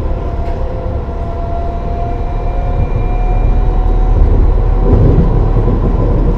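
Tram running along its track, a steady rumble of wheels on rails under the whine of its electric traction motors, the whine rising slowly as it picks up speed. The rumble grows louder about five seconds in.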